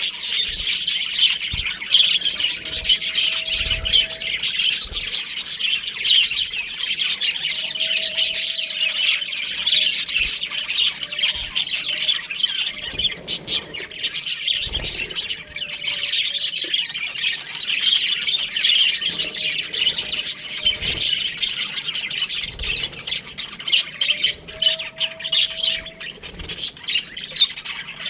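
A flock of budgerigars chattering and chirping continuously, many birds calling over one another in a dense, high twitter. A short, lower steady note recurs every few seconds beneath the chatter.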